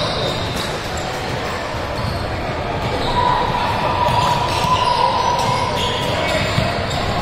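Basketball game noise in a gym: a ball bouncing on the court over spectator chatter. A steady tone joins in for about three seconds from roughly three seconds in.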